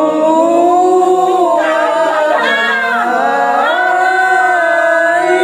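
A woman's high voice in a long, wordless sung wail, holding notes and wavering and sliding in pitch without a break.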